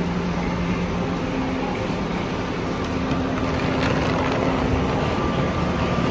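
Kaohsiung MRT train standing at the platform with its doors open: a steady hum and hiss of the train and station, with a few faint clicks about four seconds in.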